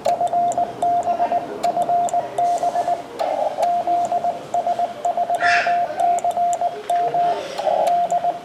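Morse code (CW) from a Yaesu FT-857 transceiver's speaker: a single tone near 700 Hz keyed in quick dots and dashes without a break, over a background of band noise with faint static clicks and a short hiss about halfway through.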